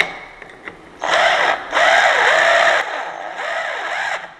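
Cordless drill-driver running in three bursts over about three seconds, driving a screw through the deadlock's metal strike box into the metal door frame; its pitch wavers and dips under load. A sharp click comes right at the start.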